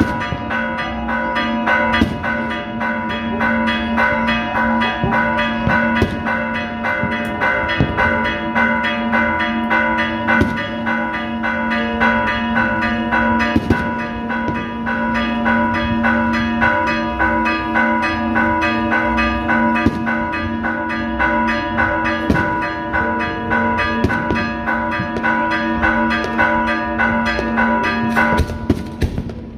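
Church bells pealing rapidly in celebration, a dense run of strikes over a steady ringing hum. The peal stops about a second before the end.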